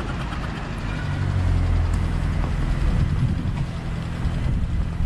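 Motor vehicle traffic on a city street: a low engine rumble swells about a second in and eases off near the end.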